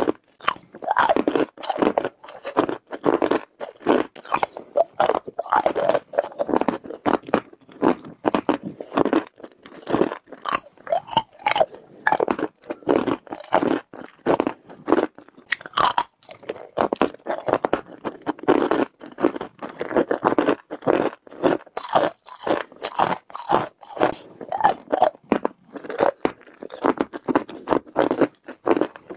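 Hard ice cubes crunching as they are bitten and chewed, a fast run of sharp crunches several times a second.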